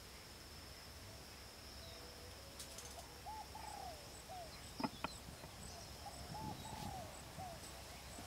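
Outdoor ambience with a steady high insect drone and short, low, arched bird calls coming in a few times from about three seconds in. About five seconds in there are two sharp knocks of bamboo poles being handled, followed by some rustling.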